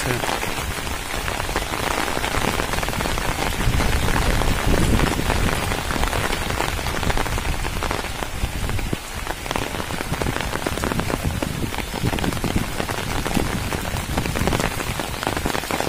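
Torrential rain falling steadily on a wet road and foliage, a dense, even hiss of countless drops.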